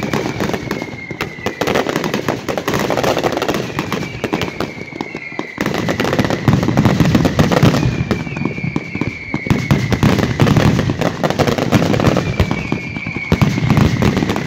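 Many fireworks and firecrackers going off at once in a dense, continuous crackle of bangs, with a falling whistle every few seconds.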